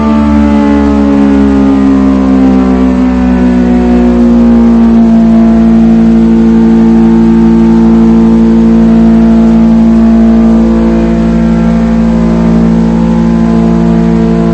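ACA Banshee 115 electronic outdoor warning siren sounding a loud tone that slides down in pitch over the first few seconds, then holds a steady low pitch.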